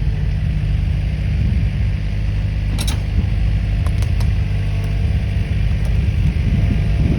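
1968 Chevrolet K20 pickup's engine running steadily, with a couple of sharp metallic clicks about three and four seconds in.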